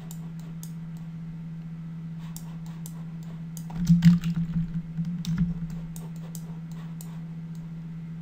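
Scattered computer mouse and keyboard clicks over a steady low electrical hum, with a louder low rumble lasting about a second and a half, about four seconds in.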